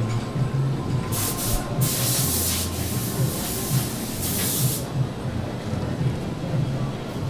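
About four short bursts of compressed air hissing, starting about a second in and ending a little past the middle, over a steady low drone of workshop machinery.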